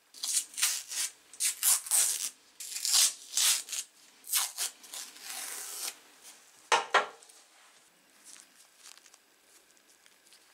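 Masking tape being peeled off the tin snips' blades and handles in a quick series of rasping tearing rips. One sharp knock comes about seven seconds in, followed by faint handling noise.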